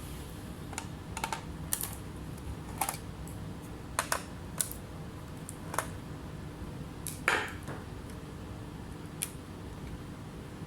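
Scattered light clicks and taps, about nine in irregular succession, with a louder, slightly longer one about seven seconds in, over a steady low hum.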